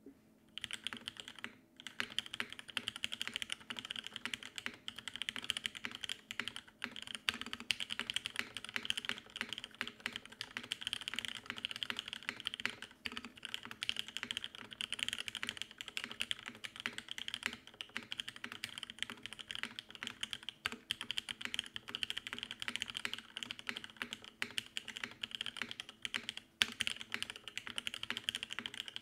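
Continuous fast typing on a Geonworks Frog TKL mechanical keyboard with lubed TTC Wild linear switches, an aluminum plate and a tape mod. The keystrokes begin about half a second in and sound fairly high-pitched and clicky, with a couple of brief pauses.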